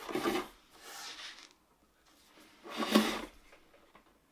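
Handling noise from a wooden tray holder being put together: faint rubbing about a second in and a louder single scrape of panel on panel about three seconds in.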